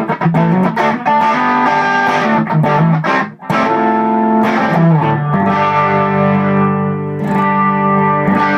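Electric guitar played through an Xotic EP Booster pedal in its warmer voicing, with the brightness DIP switch off: picked notes and chords with several sharp attacks, then a chord left ringing through the second half.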